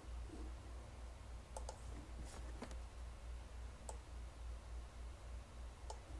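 A few scattered, faint computer mouse clicks, about six over several seconds, over a low steady hum.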